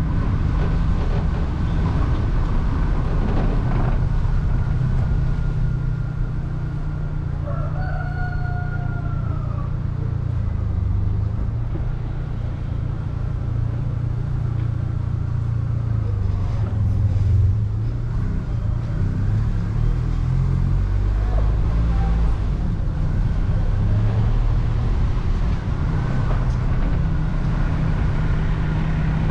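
Steady low rumble of a vehicle running. A rooster crows once about eight seconds in, its call falling in pitch at the end.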